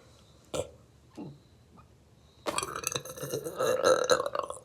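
A woman's deliberate burp, made without a drink: one long, loud, rough burp lasting about two seconds, starting about halfway through. Two short, faint throat sounds come before it.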